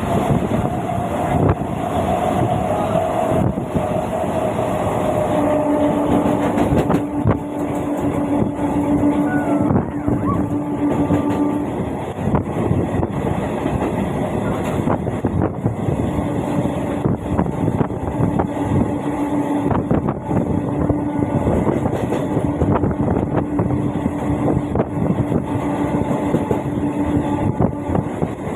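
A train running along the tracks: a dense rumble full of rapid clicks, with a steady whine that comes and goes through the middle and latter part.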